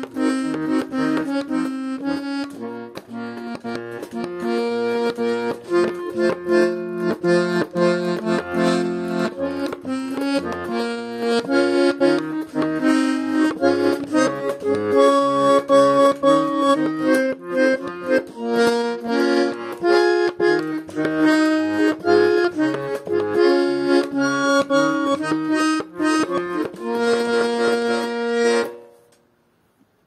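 Russian garmon (button accordion) playing a folk-song melody on the right-hand buttons over a steady left-hand bass-and-chord accompaniment. It ends on a held chord and stops shortly before the end.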